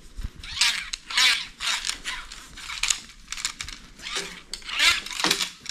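Towel rubbing along the sections and line guides of a telescopic fishing rod: about eight short scratchy wiping strokes, each about half a second to a second apart.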